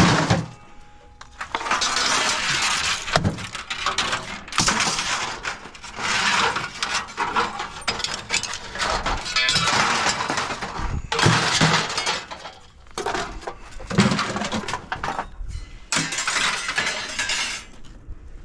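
Scrap metal and junk clattering and rattling as it is handled and thrown onto a pile, in several long bouts of a few seconds each with short pauses between.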